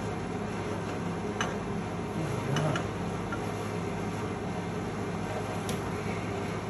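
Steady low machine hum, with a few faint clicks and taps of metal being handled.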